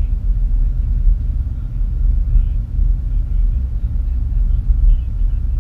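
Steady low rumble of a car driving along a road, road and engine noise heard from inside the cabin.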